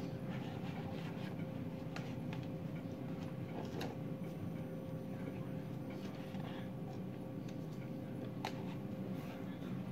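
Steady low hum with a faint steady tone, over which come a few faint sharp clicks and small taps, one at a time a couple of seconds apart, from a drinking straw being worked in a box of cornflour and sucked on.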